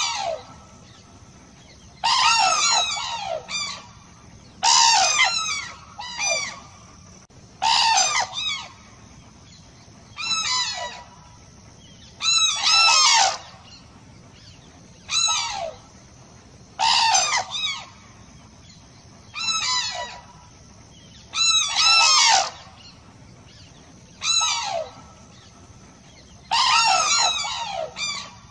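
Cranes calling: loud bursts of several quick, falling trumpeting notes, repeating about every two to two and a half seconds.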